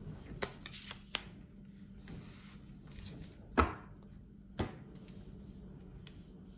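Cards being dealt onto a cloth-covered table: a few light taps and slaps as they are laid down and handled. The loudest slap comes about three and a half seconds in, and another follows a second later.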